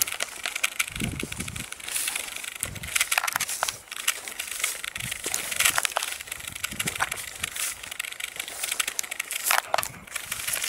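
Footsteps through dry scrub and grass, with dry stems and leaves crackling and brushing against the walker and dull footfalls every second or two.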